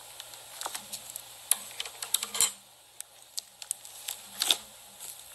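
Thick, ice-cream-textured slime being squeezed and folded by hand in a tub, giving irregular sharp clicks and pops, with a louder crackle about halfway through.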